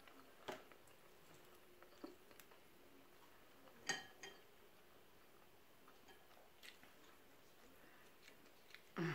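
Near silence with a few faint, scattered clicks and small crunches of eating from a seafood boil, shells being handled and chewed, the loudest about four seconds in.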